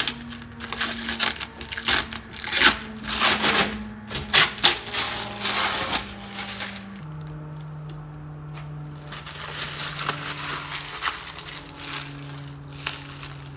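Clear protective plastic film being peeled off a MaxxAir vent fan's plastic lid, crackling and crinkling loudly in quick bursts, stopping about six seconds in. Soft background music with held notes plays throughout.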